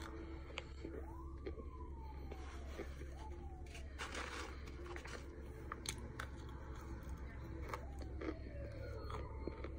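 Chunks of packed starch crunching as they are bitten and chewed. A faint wailing tone rises and falls a few times in the background, like a distant siren.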